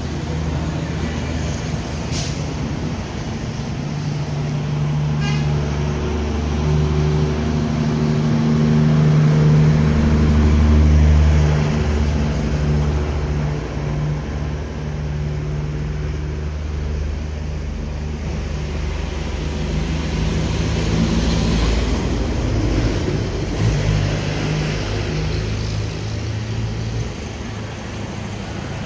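Road traffic: the low hum of vehicle engines running close by, one swelling to its loudest about ten seconds in and then fading, with another passing near the end.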